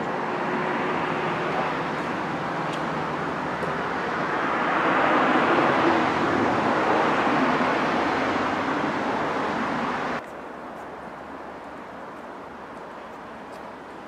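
Road traffic noise, a car passing and swelling to its loudest about five or six seconds in. About ten seconds in the sound drops off abruptly to a quieter, steady background hum.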